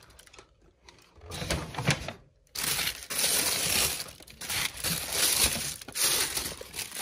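Tissue paper crinkling and rustling as it is folded back inside a shoebox: short bursts at first, then near-continuous from about two and a half seconds in.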